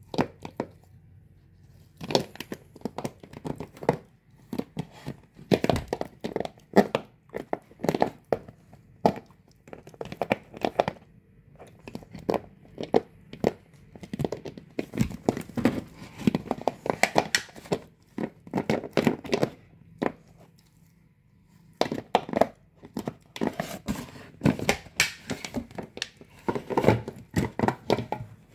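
A dog chewing a 2-liter plastic soda bottle. The plastic crackles and crinkles in quick, irregular runs of crunches, broken by brief pauses.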